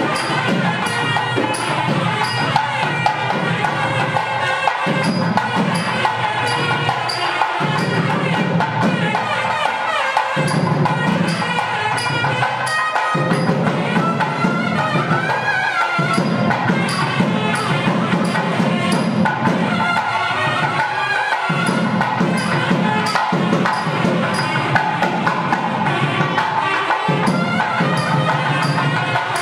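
Traditional South Indian temple procession music: a wavering melody over a steady beat of drum and cymbal-like strokes.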